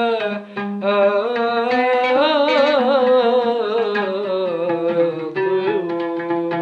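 Instrumental break in an Arabic song: a sustained, ornamented melody line with light percussion, between sung lines.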